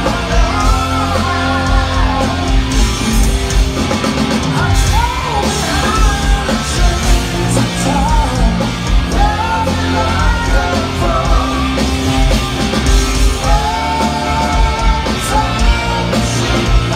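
Live rock power trio playing loudly through a hall PA: electric guitar, bass guitar and a full drum kit, with a male lead vocal singing over them.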